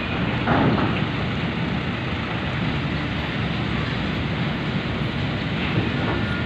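Trucks and cars driving off a roll-on/roll-off ferry's bow ramp: a steady, dense mix of engine noise.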